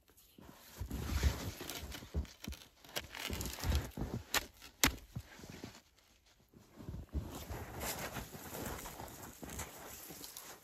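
Someone working in snow with branches: irregular crunching steps, rustling and knocking of wood, with two sharp snaps close together about halfway through.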